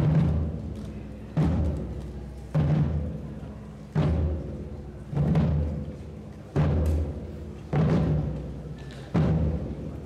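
Slow, steady beat of a procession band's deep drum: one stroke about every second and a quarter, each ringing and fading before the next.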